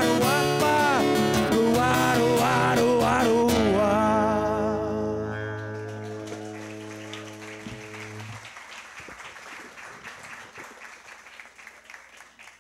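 Man singing the last held, wavering notes of a song over strummed acoustic guitar, stopping about four seconds in. The final guitar chord rings out and fades while the audience claps, the applause slowly dying away.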